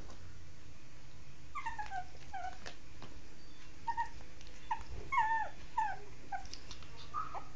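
Shih Tzu whimpering: about a dozen short, high whines that fall in pitch, starting about a second and a half in.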